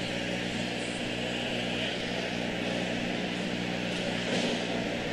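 Steady arena background noise: an even, pitched hum with a constant hiss over it, and no distinct knocks or voices standing out.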